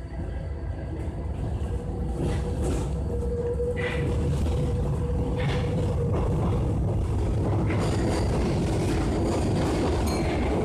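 MF67 metro train standing at the platform, its equipment giving a steady low rumble with a hum. It grows louder over the first few seconds, then holds steady, with a few faint clicks.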